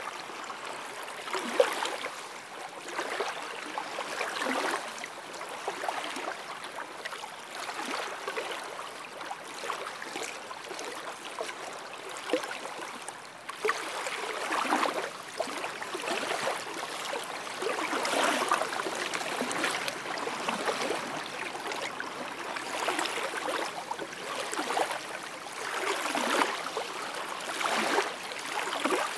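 Small lake waves lapping onto the shore, each one washing in and drawing back, about one every two seconds.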